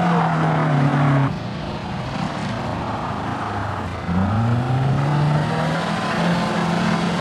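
Peugeot 106 rally cars on a gravel stage: the first car's engine is held at high revs and stops abruptly just over a second in, then after a quieter stretch a second car's engine revs up sharply about four seconds in and holds high.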